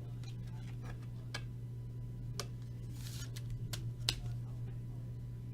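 A few light clicks and taps from trading cards being handled, with a soft rustle near the middle, over a steady low hum.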